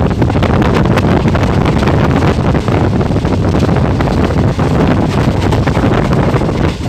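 Sir Syed Express passenger train running at high speed: heavy wind buffeting the microphone over a continuous rush of rattling wheel and rail noise.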